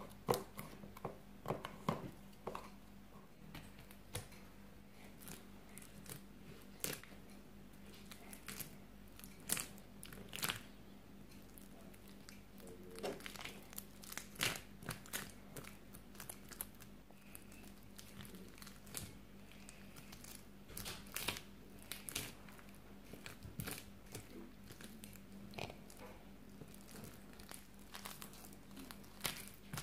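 Red slime packed with small foam beads being squeezed, kneaded and pulled apart by hand, giving faint, irregular crackles, pops and crunches as the beads shift and the slime tears.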